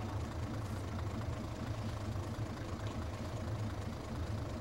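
Nanbu Jukan Railway rail bus's diesel engine idling steadily with a low, even rumble while the railcar stands at the platform.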